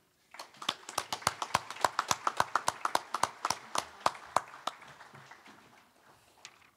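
A small group of people clapping, the separate hand claps plainly distinct at several a second, dying away over the last couple of seconds.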